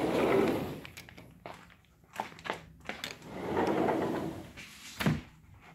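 Movement and handling noise as someone walks while carrying the camera: two swelling rushes of rubbing noise, with scattered clicks and knocks between them and a sharper knock about five seconds in.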